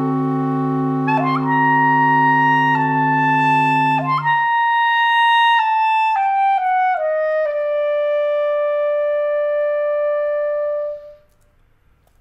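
Clarinet quartet of three B♭ clarinets and bass clarinet playing a held chord over a low bass clarinet note. About four seconds in the lower parts stop, and the upper line steps downward to one long held note that fades out near the end.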